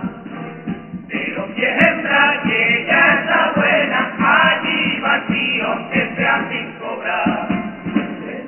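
A male chirigota chorus sings a carnival song in unison, accompanied by Spanish guitars. The voices come in strongly about a second in after a softer opening.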